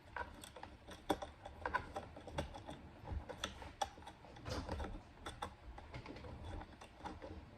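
Light, irregular clicking and tapping of small hardware being worked on a wooden kids' table during assembly, screws and fittings being turned and knocked into place.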